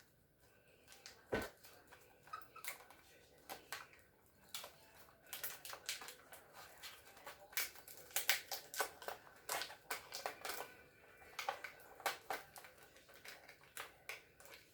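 Irregular clicking and clattering of small hard parts being handled, with one sharper knock about a second and a half in, as screws and parts are rummaged through during a refrigerator damper repair.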